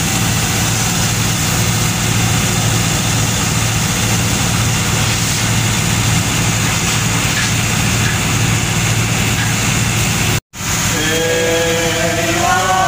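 Steady low hum and hiss of a ship's running machinery, heard inside the vessel's cabin. A brief dropout cuts the sound about ten seconds in, and voices start singing near the end.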